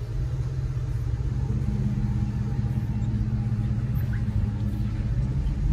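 Car engine and road noise heard from inside the cabin while driving slowly: a steady low drone.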